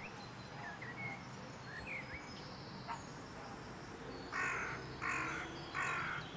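A crow cawing four times in a row, harsh calls about two-thirds of a second apart, starting about four seconds in. Before that, a few faint short chirps of small birds over a faint steady background.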